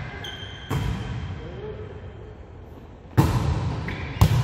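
A volleyball is hit during a rally, three sharp smacks that echo around a large gym: one just under a second in, one about three seconds in, and one near the end.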